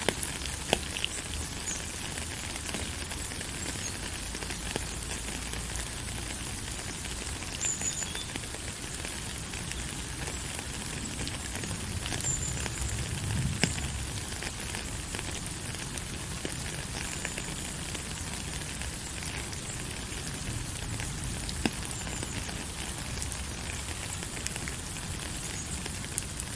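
Steady rainfall: an even hiss thick with small drop ticks, over a low rumble.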